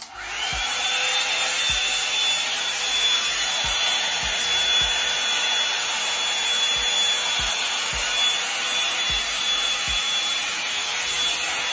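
Revlon One-Step hot-air brush dryer switched on, its motor whine rising briefly as it spins up, then running steadily with a loud rush of air and a thin high whine.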